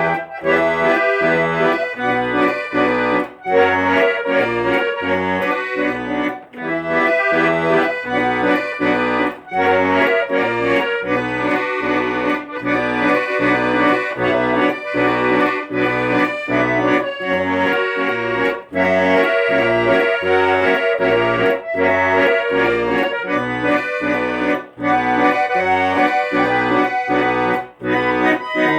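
Accordion playing a melody over a steady, rhythmic bass accompaniment.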